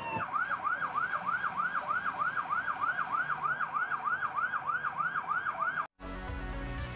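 Police vehicle siren cycling rapidly up and down in a fast yelp, about three cycles a second. It cuts off about six seconds in and music begins.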